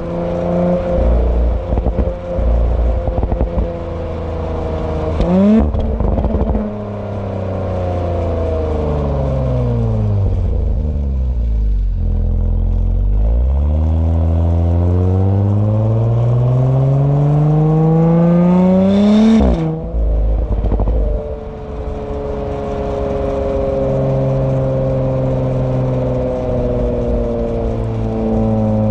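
Exhaust of a 2018 Audi B9 S4's turbocharged V6 while driving. The engine note sinks for several seconds as the car slows, then climbs steadily under acceleration to a sudden break at a gear change about two-thirds of the way through, then settles. Short crackles come from the exhaust near the start and just after the gear change.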